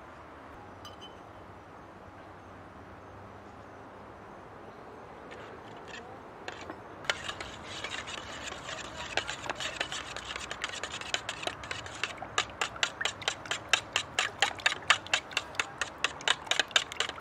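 Metal spoon stirring a sauce in a stainless steel bowl, scraping and clinking against the bowl's sides. The stirring starts about seven seconds in, after a quiet stretch, and settles into a fast, even run of clinks.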